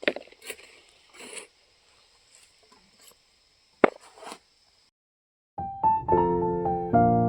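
A few faint clicks and rustles, with one sharp click about four seconds in. After a brief drop-out, gentle piano music starts about five and a half seconds in and carries on.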